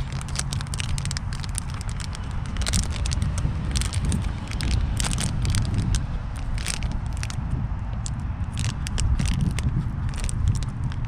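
Crinkling and crackling of a small foil-and-plastic cigar-wrap pouch being pried open with one hand, in irregular bursts of sharp crackles over a steady low rumble on the microphone.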